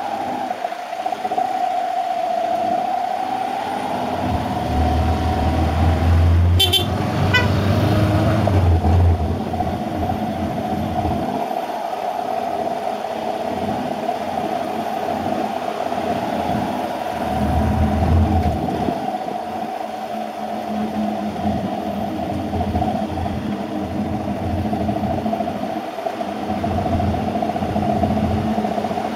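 Motorcycle engine running steadily while riding, with a low rumble that comes and goes. A brief sharp click about seven seconds in.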